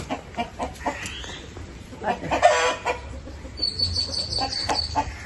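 Kadaknath chicken clucking in short sharp calls while it is handled, with one louder drawn-out squawk about two and a half seconds in.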